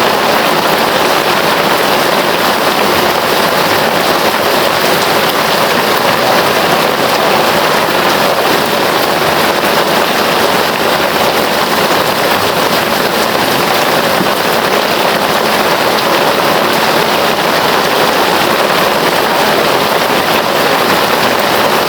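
Heavy rain falling, a steady, unbroken hiss of rain on a surface.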